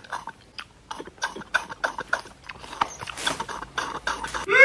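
A person gulping down a drink in a run of quick swallows that make short, irregular wet clicks, about three or four a second. A voice starts up right at the end.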